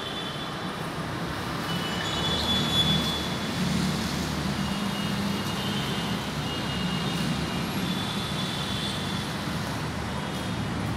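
Steady low rumble of motor-vehicle noise, with a few faint high thin tones coming and going.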